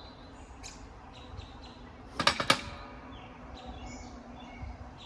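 A quick run of four or five sharp metal clinks about two seconds in, with birds chirping faintly.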